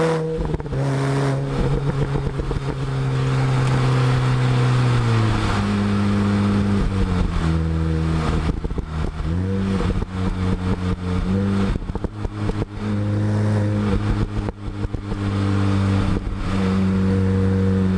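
Exhaust note of a MINI Cooper S John Cooper Works' supercharged 1.6-litre four-cylinder, recorded right at the tailpipe. It holds a steady pitch under throttle for about five seconds, then falls and rises several times as the throttle is lifted and reapplied, with bursts of crackling pops from the exhaust each time the throttle is lifted.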